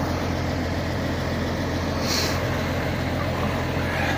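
Heavy diesel engine idling steadily, with a brief hiss about two seconds in.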